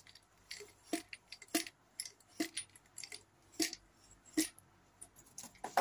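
Light metallic clicks and knocks from a Satori Sorata Comp dropper post and its parts being handled, a dozen or so at irregular intervals.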